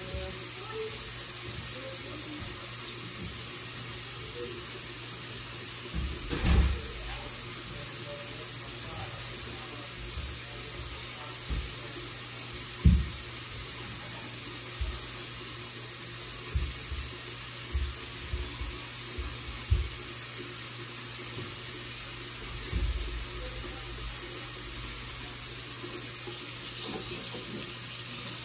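Bathroom tap running steadily into a sink, with a few brief low thumps.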